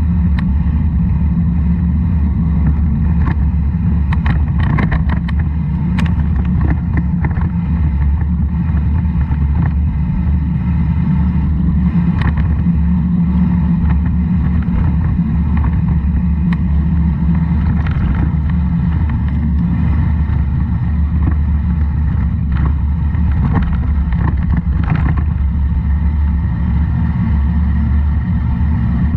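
Steady low rumble of wind buffeting and road noise on a camera mounted to a vehicle riding downhill, with scattered sharp clicks and rattles, most of them about four to seven seconds in and again near the end.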